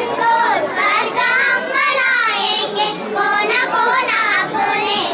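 A small group of young girls singing a song together into a microphone.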